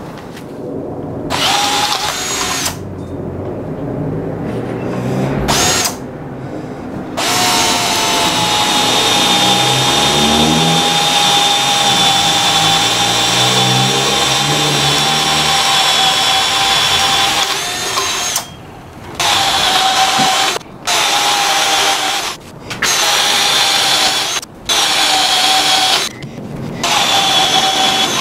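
Stanley and Porter-Cable 20-volt cordless drills boring holes into a wooden post. There are a few short bursts, then one long run of about ten seconds, then a string of short runs that stop and start every second or two.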